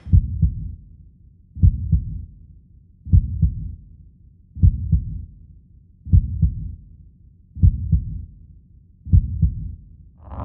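Slow heartbeat sound effect: a deep double thump, seven times, about every one and a half seconds. At the very end a sudden loud rush of noise cuts in.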